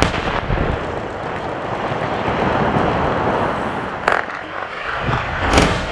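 Rock-blasting charges going off for road cutting: a continuous loud rumbling noise with sharp cracks about four seconds in and again near the end.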